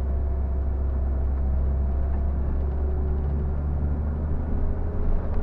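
A Scania coach's diesel engine running steadily, heard from inside the driver's cab as a deep, even drone.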